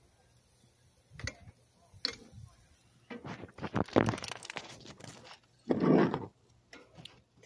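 Handling noise close to the microphone: a couple of clicks, then rustling and crunching as the recording device is moved, and a louder muffled burst about six seconds in.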